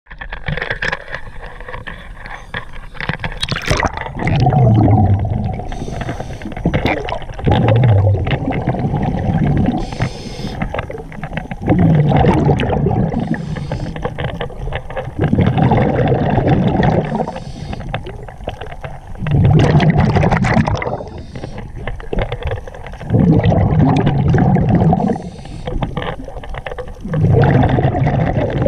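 A diver breathing underwater through a regulator: a loud bubbling rush of exhaled air about every three to four seconds, with a short hiss of inhalation between some of the breaths.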